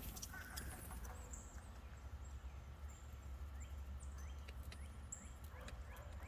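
Faint, short bird chirps, several sweeping up in pitch, over a steady low rumble, with a few soft clicks.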